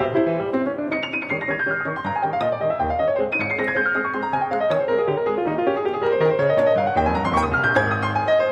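Solo piano music: fast runs of notes sweep down twice, then climb back up near the end.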